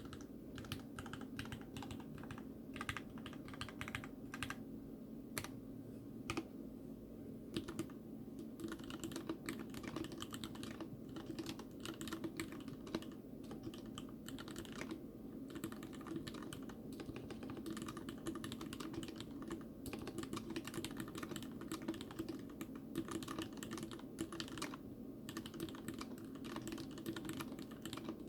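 Continuous fast typing on a TX87 mechanical keyboard with Cherry MX RGB Red linear switches, their sliders brushed with a Krytox 103/107 lube mix, in a case with a stainless steel plate: a steady run of soft key strokes, several a second. A steady low hum sits beneath the keystrokes.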